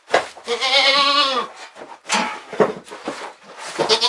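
A goat bleating: one long, wavering bleat about half a second in, followed by shorter calls.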